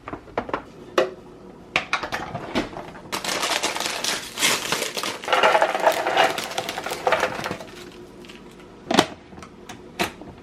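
Dry snack pieces poured out of a bag into a plastic container, a dense rattling lasting about four seconds, with separate clicks and knocks of handling the container before and after.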